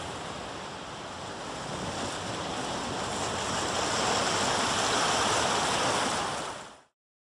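Steady rushing noise, like surf, under a channel intro, swelling slowly for about six seconds and then fading out quickly.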